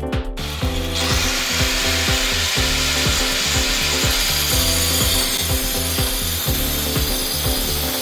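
Angle grinder with a stone-cutting disc cutting into a granite door frame: a loud, steady, harsh grinding of the disc against the stone that starts a moment in and keeps on without a break.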